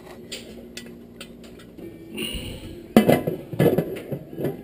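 Stovetop aluminium pressure cooker lid being lowered onto the pot and settled in place: quiet at first, then a handful of sharp metal clanks and scrapes over the last second and a half.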